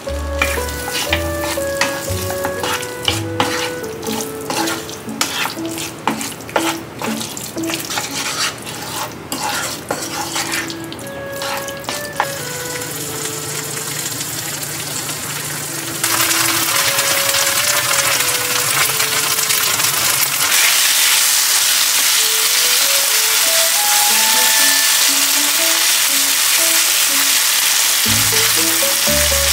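Mushroom pieces frying in a thick spicy sauce in a nonstick pan, stirred with a wooden spatula: many short scrapes and taps against the pan in the first dozen seconds, then a louder, steady sizzle from about halfway on. Light background music plays alongside.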